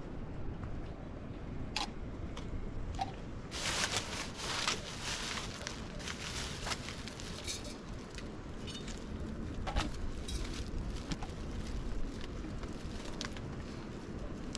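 Steady outdoor wind rumble with scattered light clicks, crunches and rustling, busiest about four seconds in.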